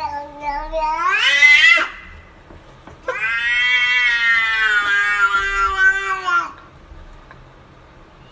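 Domestic cat yowling in two long, drawn-out, word-like meows, like "no" and "whyyy". The first rises in pitch and breaks off about two seconds in; the second starts about a second later and is held for over three seconds, sinking slightly at the end.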